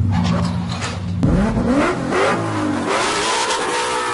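Car engine running low and steady, then revved hard from about a second in, its pitch rising in several sweeps.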